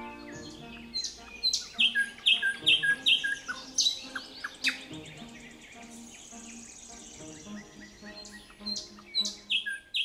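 A songbird singing loud, clear, high-pitched phrases, each short phrase repeated three or four times in quick succession. The song is busiest about a second in and again near the end, with quieter singing between.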